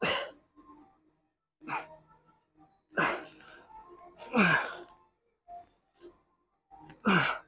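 A man's forceful exhalations, each sliding down into a falling grunt, one on each pull of a single-arm cable row. There are five of them, about a second and a half apart, with a longer pause before the last.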